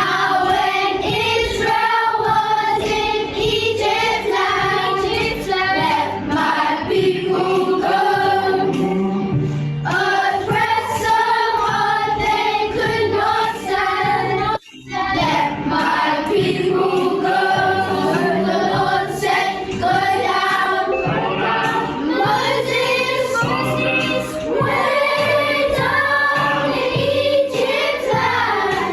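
A group of children singing a song together with backing music; the sound cuts out briefly about halfway through.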